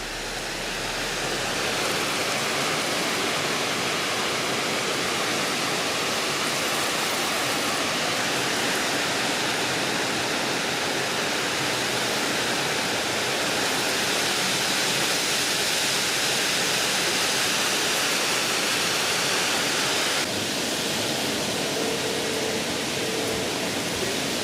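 Heavy rain pouring down in a severe thunderstorm with strong wind: a steady rushing hiss that drops slightly about twenty seconds in.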